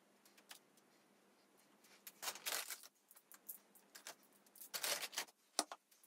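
Quiet handling sounds while poğaça buns are scored with a fork on metal baking trays: faint clicks and taps, two brief scraping rustles about two and five seconds in, and a sharp tap just before the end.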